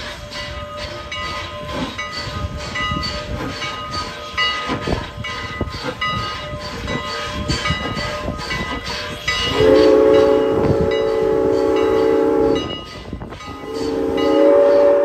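A steam train running with clicking and rattling from the wheels and coaches, then the steam whistle of 2-6-0 locomotive No. 89 sounds two long blasts, the first about ten seconds in for some three seconds and the second starting near the end.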